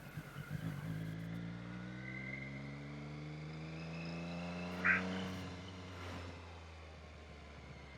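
Motorcycle engine pulling under acceleration, its pitch rising slowly for about four seconds before easing off. A brief, sharp, higher sound comes just past the middle.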